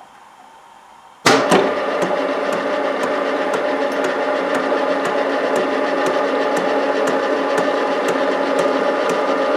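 TV-4 school lathe switched on about a second in with a sudden loud start, then running steadily with a hum of several tones and a regular tick about twice a second.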